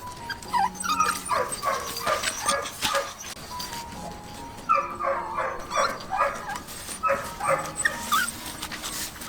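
A small dog yapping in two runs of short, high yips mixed with whimpers.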